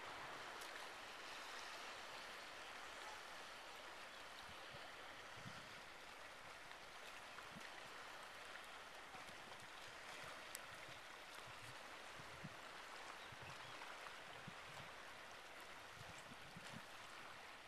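Faint, steady wash of small sea waves lapping, with a few light ticks of water scattered through it.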